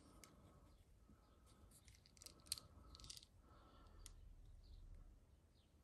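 Near silence, with faint handling noise from a steel revolver being turned over in the hands: a few small clicks and rubs, one sharper click about two and a half seconds in.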